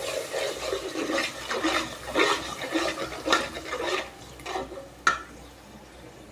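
A metal spoon stirring and scraping spice paste around an aluminium pot in irregular strokes, with a little water being poured in. About five seconds in there is one sharp clink, after which the stirring stops.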